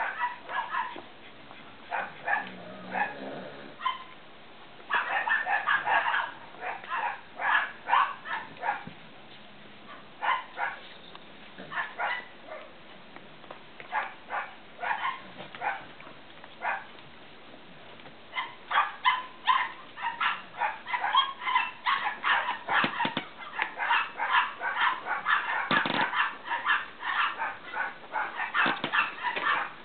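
Cavalier King Charles Spaniel puppies yipping and barking in play, short high calls several a second in bursts. The calls are sparser through the middle, then come in a long, dense run in the last third.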